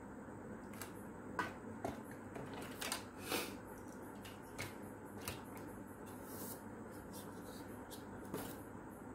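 Parts of a dismantled rechargeable fan (plastic pieces and a circuit board with wires) being picked up and set down on a workbench: a scatter of light clicks and knocks, several close together in the first half, over a steady faint hiss.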